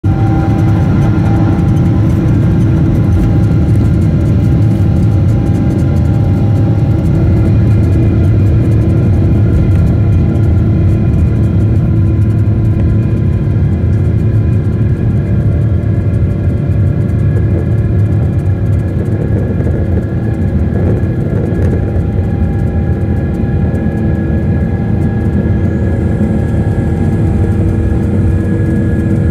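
Cabin noise of a Boeing 777 rolling fast along the runway: a steady engine hum with several held tones over a dense low rumble, easing off slightly in the second half.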